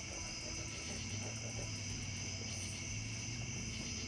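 Steady chorus of night insects, crickets, with the low, steady drone of a distant motorcycle engine underneath.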